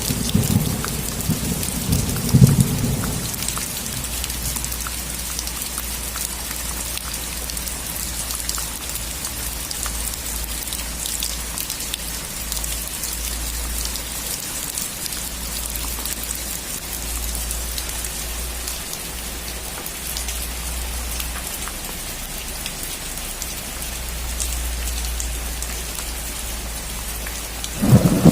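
Steady rain falling on a roof. Thunder rumbles during the first three seconds, peaking about two and a half seconds in, then dies away and leaves only the even patter of rain.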